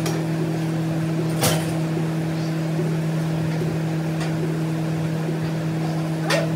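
Pec deck (butterfly) chest machine in use: its weight stack clinks a few times, a couple of seconds apart, as the reps go. A steady low hum runs under the clinks.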